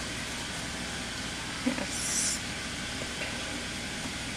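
Glitter shaken out of its container into a bowl of slime mixture: a light tap, then a brief high-pitched rustling hiss about two seconds in, over a steady background hiss.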